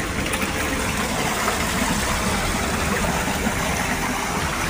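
Shallow rocky stream running steadily, with water sloshing as a person wades through it.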